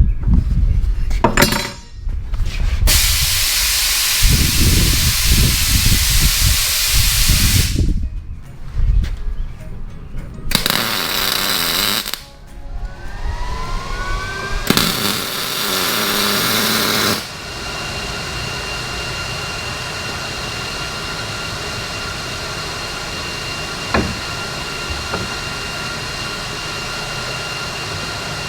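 Metal-shop tool noise: three bursts of loud hissing a few seconds each, with a rising whine between the second and third, then a steady hum with an occasional click.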